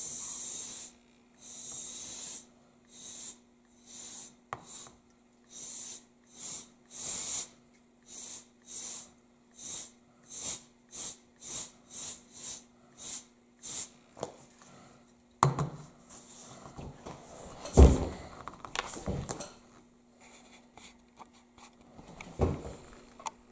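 A can of compressed air (Dust-Off) sprayed through its extension straw in about twenty short hissing bursts, coming quicker as they go, blowing wet alcohol ink across the plastic. After that come handling knocks and rustles, with one loud thump about three quarters of the way through.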